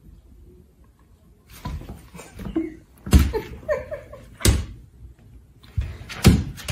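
Several sharp knocks and thumps. The loudest come about three seconds in, about four and a half seconds in and near the end, with a brief vocal sound between the first two.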